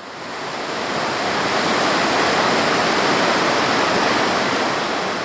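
Rushing water of the Hozu River rapids, a steady, even rush that fades in over the first second.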